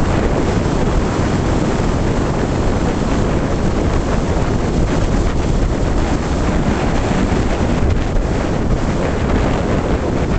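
Strong wind, about 30 mph with gusts, buffeting the camera's microphone: a loud, steady noise.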